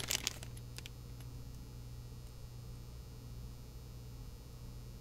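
Small plastic bag of brass screws crinkling, with the screws clicking a few times in the first second as it is handled against a magnet. After that, only a steady low mains hum.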